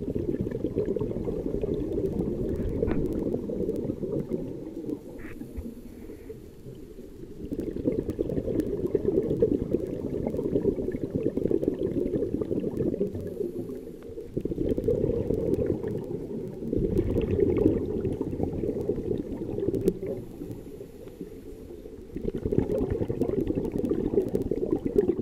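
Underwater breathing of a scuba diver: exhaled bubbles rushing from the regulator, heard through the water. They come in long loud stretches separated by quieter pauses, about four breaths in all.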